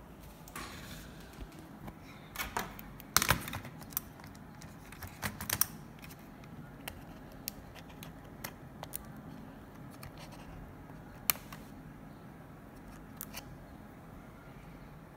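Scattered sharp clicks and taps from handling the parts of an opened laptop, with a loud cluster about three seconds in and more around five and a half and eleven seconds.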